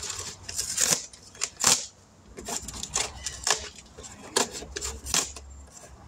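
Cardboard wrapping being torn and pulled off a new motorcycle tire: a string of irregular sharp rips, crinkles and rustles.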